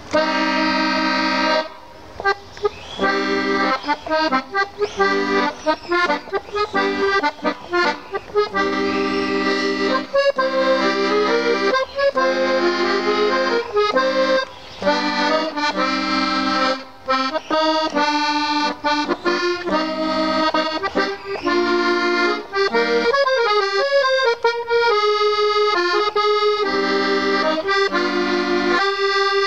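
A concertina-type squeezebox playing a tune, melody notes moving over held chords, with brief breaks between phrases.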